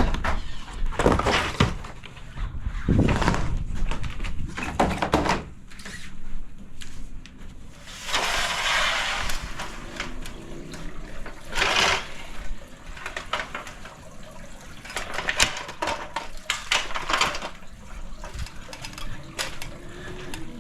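Corrugated plastic roof panels being handled, giving irregular knocks, crackles and scrapes, with a longer rushing scrape about eight seconds in.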